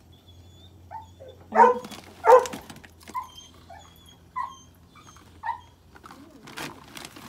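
Dog giving short barks and yips, about six of them, the two loudest about two seconds in.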